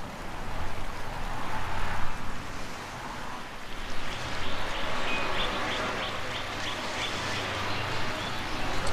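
Steady wind rushing. From about four seconds in to about seven and a half seconds, a bird gives a quick run of short, high chirps.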